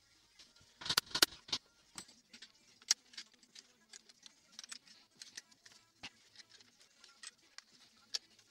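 Small metal screw clamps being handled and fitted onto a knife's wooden handle scales: a quick cluster of sharp metallic clicks and knocks about a second in, then scattered lighter clicks and taps.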